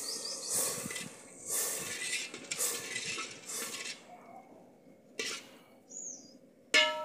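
Steel ladle stirring milk and roasted vermicelli in a brass pot: four swishing strokes about a second apart, then a sharp metal clink that rings briefly near the end.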